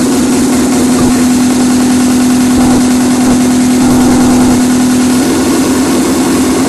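Loud electronic dance music from a sound system, a single low note held steady for about five seconds before the pulsing pattern comes back.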